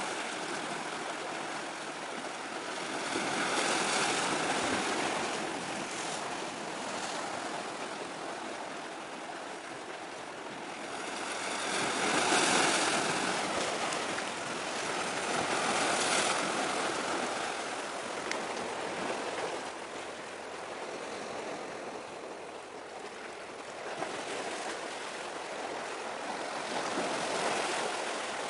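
Sea waves washing in on the shore, a rushing noise that swells and fades several times, loudest about twelve seconds in.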